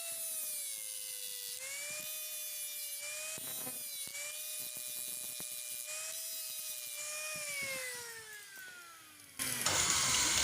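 Small high-speed grinder running with a steady whine that dips and recovers in pitch as it grinds off the leftover end of a heli-coil thread insert, then spins down with a falling whine near the end. A louder clattering noise starts just before the end.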